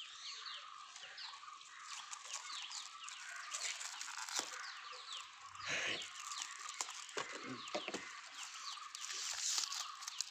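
Birds calling in the background: many short, high notes that fall in pitch, repeating a few times a second. A few clicks and rustles come from a small cardboard gift box and its plastic wrapper being handled.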